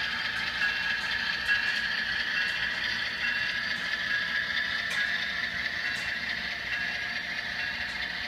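HO-scale model freight cars rolling past on the track: a steady, light metallic rolling clatter of small wheels on rail, with a few faint clicks.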